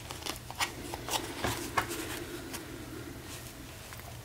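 Twine being unwound from a cardstock journal folio and the folio handled: light paper-and-string rustling, with several soft taps and clicks in the first two seconds, quieter after.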